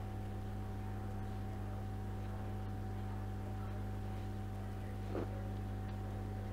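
Steady low electrical hum with a faint high tone over it, the background noise of the recording setup. A brief soft sound comes about five seconds in.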